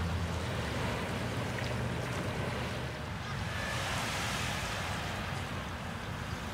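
Lakeshore ambience: a steady rush of wind on the microphone mixed with small waves washing on the sandy beach.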